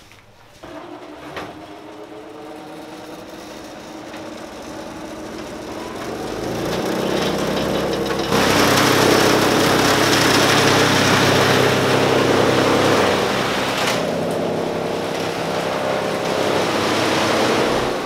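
Belt-driven electric chaff cutter running steadily and chopping green fodder. It gets louder partway through, with a sudden step up about eight seconds in.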